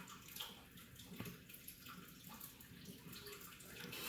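Faint trickling and dripping water, with a few small clicks.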